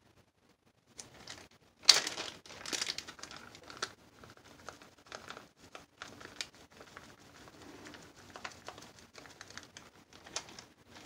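Small plastic bag of mica powder crinkling as it is handled, pinched open and shaken out over a cup; the crackling is loudest about two seconds in.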